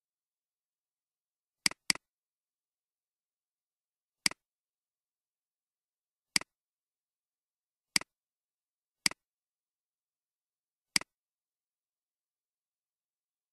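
Computer mouse button clicks, seven in all, each a sharp click with a fainter release right after, spaced a second or two apart with a quick pair about two seconds in.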